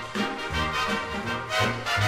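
Background music in a swing style, with brass instruments over a bass line that moves about twice a second.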